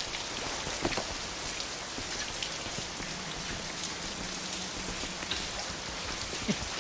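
Steady rain falling on a hard surface, with a faint low hum through the middle and a couple of light knocks.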